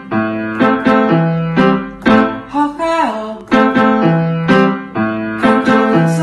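Background music: a bouncy piano tune with notes struck in a steady, regular rhythm.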